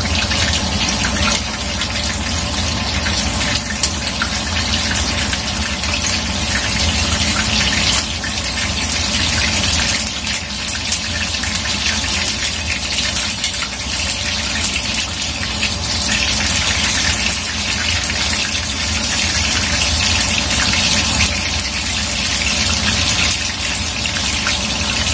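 Eggplant pieces frying in hot oil in a wok: a steady sizzle dense with small crackles and pops.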